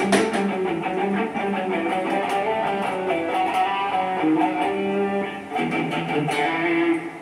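Electric guitar playing a single-note melodic line low on the neck, notes held and changing pitch; it dies away shortly before the end.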